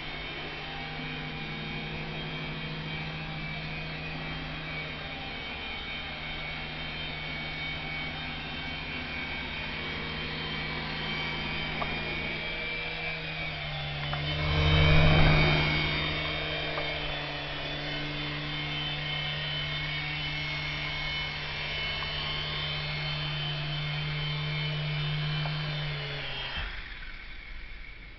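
Syma S107 micro RC helicopter's coaxial rotors and small electric motors whirring steadily in flight, with a low hum and a high whine that shift a little in pitch with the throttle. It is loudest about halfway through as it flies close. The motors cut off suddenly near the end as it sets down on a table.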